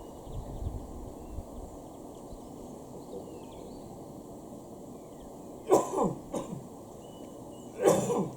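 A person coughing twice, once about two-thirds of the way in and again near the end, over a steady low background rumble.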